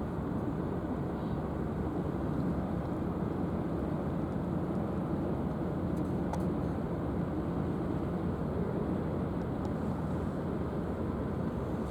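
Steady low rumble of the helicopter destroyer JS Izumo's engines and exhaust, running at an even level.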